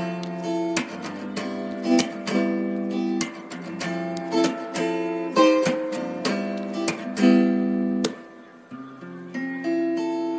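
Background music of acoustic guitar, strummed and picked in a steady rhythm, turning to sparser held notes about eight seconds in.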